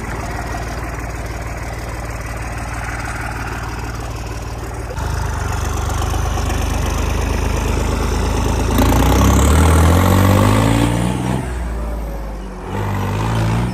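Diesel tractor engine running steadily. It picks up about five seconds in, is revved hard about nine seconds in with a brief rising whine, drops back, then revs up again near the end.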